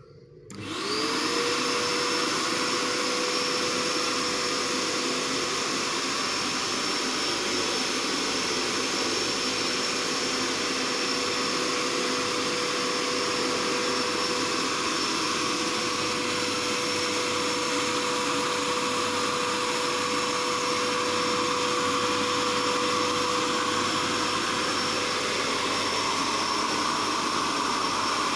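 Bayamo electric hand dryer switching on and running. Its motor whine rises to full speed within about a second, then holds steady under a loud rush of air.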